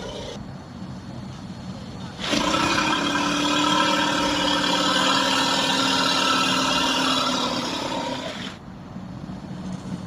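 Dinosaur creature sound effect: after about two seconds of low rumble, one long call held at a steady pitch comes in suddenly and lasts about six seconds before fading away.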